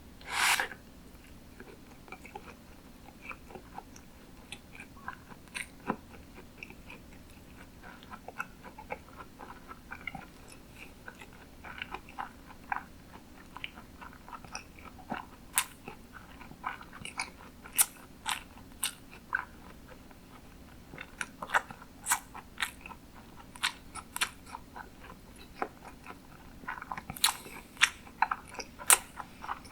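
Close-miked chewing of sushi: a steady run of wet smacks and clicks of biting and mastication, with one louder, longer noise about half a second in.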